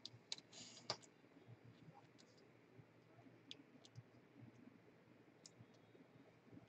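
Near silence with a few faint, scattered clicks and a brief soft rustle about half a second in.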